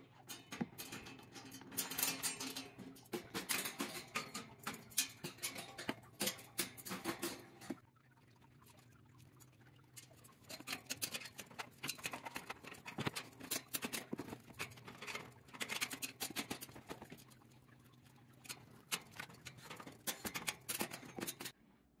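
Cockatoo chewing and tugging at a strap with its beak: rapid, irregular crackling clicks and scratches, easing off for a couple of seconds about eight seconds in.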